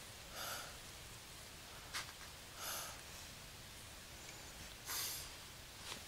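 Faint breathing close to the microphone: three soft breaths about two seconds apart, with a single faint click between the first two.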